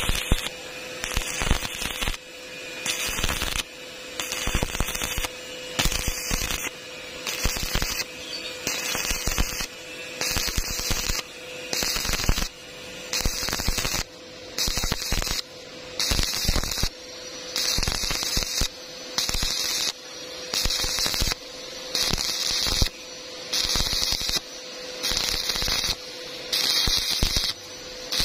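Stick-welding arc of a 2.6 mm E6013 electrode, crackling and hissing as it burns along the joint, over a steady hum. The crackle comes in regular surges about once a second.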